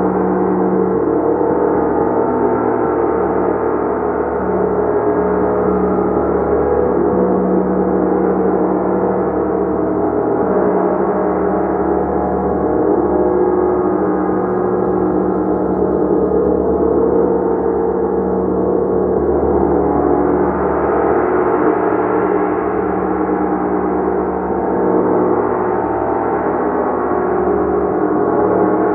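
Gong played continuously in a sustained wash of many overlapping ringing tones, with no breaks. It swells and brightens about two-thirds of the way through.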